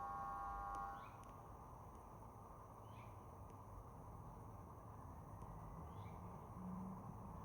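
A bird giving faint, short falling chirps, three times at roughly three-second intervals, over a low steady background hiss. A few steady tones sound during the first second and then stop.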